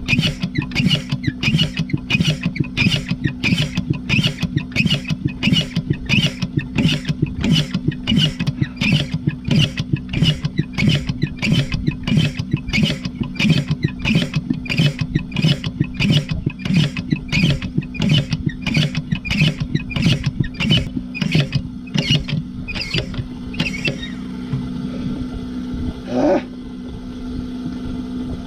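Irrigation pump engine running steadily while its primer is worked by hand in regular strokes, about one and a half a second, priming the pump to draw water. The strokes stop near the end, followed by a single click.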